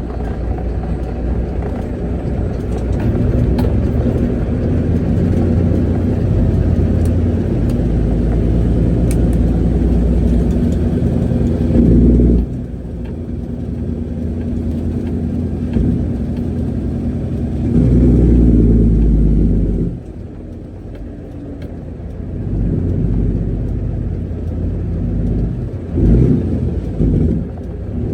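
Semi truck's diesel engine running with a steady low rumble. It swells louder twice, near the middle and about two-thirds in, then drops off abruptly.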